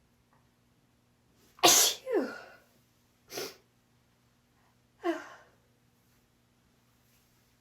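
A woman sneezing several times. The first and loudest sneeze comes under two seconds in and trails off falling in pitch, a short sharp burst follows about a second and a half later, and another sneeze comes about five seconds in.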